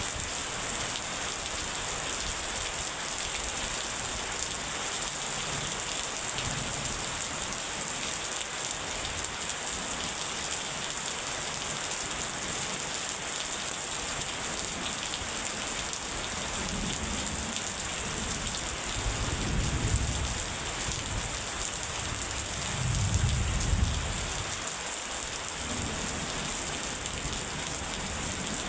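Steady heavy rain falling, with thunder rumbling twice in the second half, the second rumble the louder.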